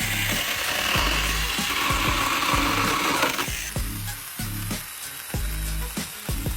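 Saker cordless mini chainsaw cutting wood, a loud hissing rasp that stops abruptly a little over three seconds in. Background music with a steady beat plays throughout.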